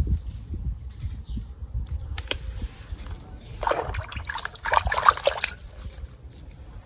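A hand sloshing and splashing in a plastic tub of water, dipping a plastic toy animal, with the splashing loudest for about two seconds past the middle. A low rumble runs underneath.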